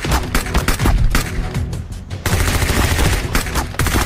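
Rapid gunfire, many shots in quick succession, over background music.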